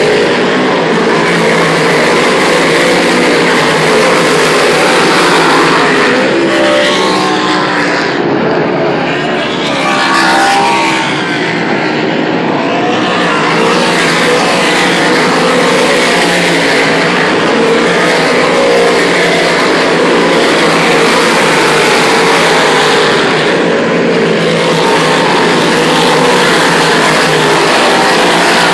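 A field of big-block V8 dirt modifieds racing around the track: a loud, continuous engine din, with engine notes rising and falling as cars go by.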